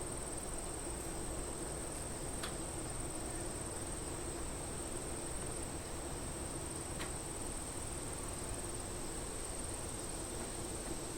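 Cicadas buzzing in a steady, unbroken high-pitched chorus.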